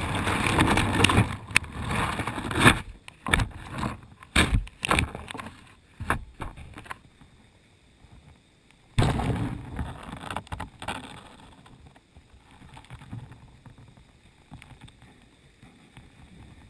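Water rushing around an underwater camera rig as it sinks, then a run of sharp knocks and bumps as the rig with its lead sinker settles on the rocky riverbed. About nine seconds in, a sudden burst of rushing water noise fades over a couple of seconds.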